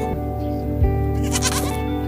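A bleating farm animal calls once, briefly, about a second and a half in, over steady background music.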